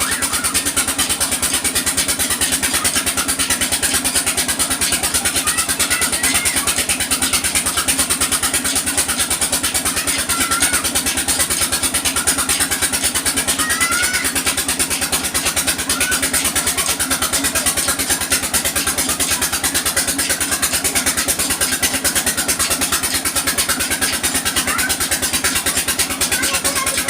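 An engine running steadily at an even speed, with a fast, regular pulsing beat.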